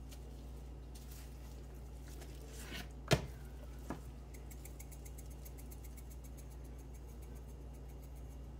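Spice jar shaken over a raw chicken: a fast, faint rattle of dried seasoning in the later part, after a single sharp knock about three seconds in and a lighter click just after. A steady low hum underlies it all.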